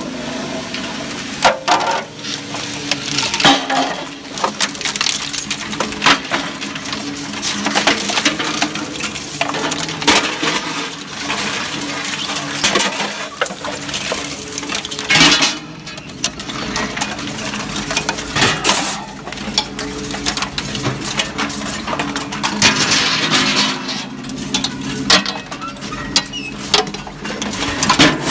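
Enerpat scrap metal shredder's rotating hooked cutter blades tearing through scrap sheet metal: continuous irregular metallic clanking and crunching, with a few sharper knocks, over the steady hum of the drive.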